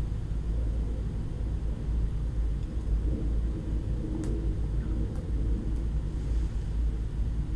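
Steady low background rumble, with a faint click about four seconds in.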